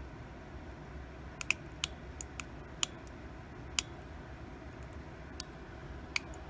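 Small wind-up music box movement giving sparse, irregular sharp clicks, about nine of them, over a steady low hiss.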